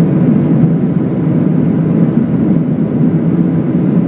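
Steady engine and airflow noise inside the cabin of an Airbus A319 climbing out just after takeoff.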